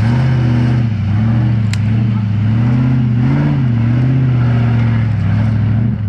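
Off-road 4x4 vehicle's engine revving hard under load, its pitch rising and falling over and over.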